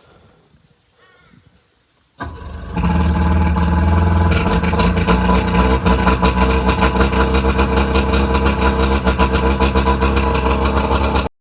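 1997 Mercury 125 hp two-stroke outboard motor being started: a moment of cranking about two seconds in, then it catches and runs steadily with a fast pulsing beat, cutting off abruptly near the end.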